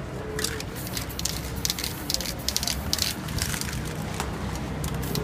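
Aerosol spray-paint can hissing in a rapid run of short, sharp bursts for about three seconds, then easing off, over a steady low background hum.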